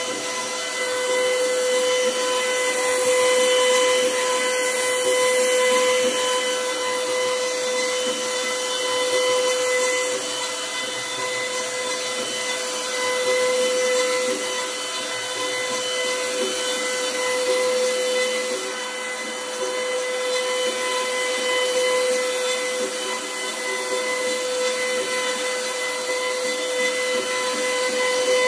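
CNC router spindle running at steady speed with a constant high whine over a hiss as its bit carves a pyramid pattern into a wooden panel.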